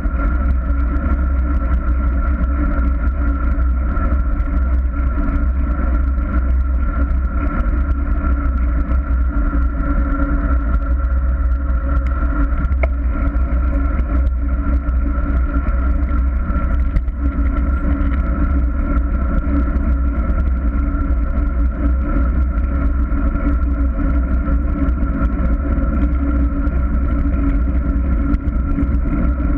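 Steady wind rush and road rumble on the microphone of a handlebar-mounted camera on a moving bicycle, with a constant hum running through it.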